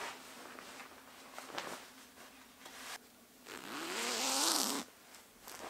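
A zipper on a duvet cover being pulled along in one long stroke, a buzzing rasp whose pitch wavers with the speed of the pull, about three and a half seconds in. Before it there is soft rustling of the bedding fabric.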